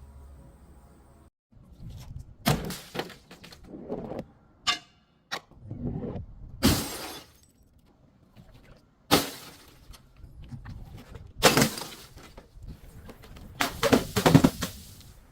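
Glass bottles breaking and crunching in a series of separate crashes a second or two apart, with a quick run of several crunches near the end.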